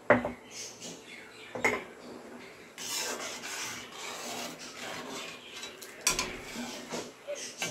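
A metal ladle stirring and scraping around a cooking pot, with a few sharp knocks against the pot and a longer stretch of scraping in the middle.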